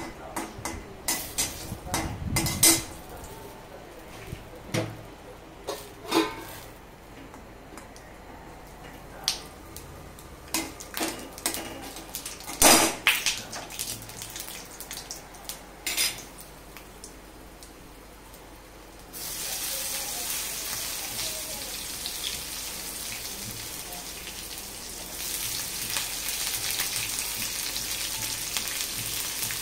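A metal spatula scrapes and knocks against a metal kadhai while peanuts fry in a little oil, in scattered clicks. About 19 seconds in, a steady sizzle starts suddenly as chopped green chillies and other ingredients go into the hot oil, and it grows louder again a few seconds later.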